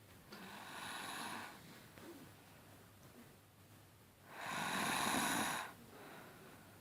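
Snoring: two drawn-out, rasping snore breaths about four seconds apart, the first softer, the second louder.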